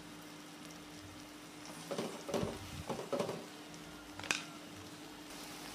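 Spice paste and whole green chilies frying gently in oil in a wok on low heat. A metal spatula scrapes and knocks against the wok a few times about halfway through, with one sharp clink a little later.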